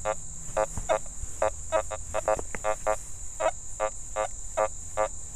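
Nokta Makro Fors Core metal detector giving a rapid series of short beeps of varying pitch as its coil sweeps over a rusty nail lying on top of a buried dime, the audio breaking between iron and higher conductive tones. A steady high insect chirring runs underneath.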